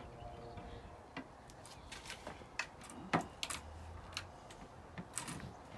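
Light wooden knocks and clicks, scattered and irregular, as the parts of a white-painted solid mahogany garden bench are handled and fitted together. The loudest knock comes about three seconds in.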